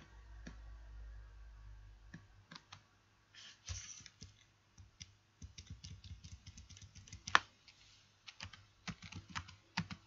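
Typing on a computer keyboard: faint, irregular key clicks as text is edited, with one sharper keystroke about seven seconds in.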